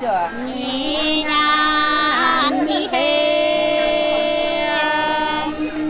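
Hát sli, the Nùng folk song of Lạng Sơn, sung in long drawn-out held notes. The voice swoops down into the first note, steps between a few pitches, and breaks briefly about halfway through.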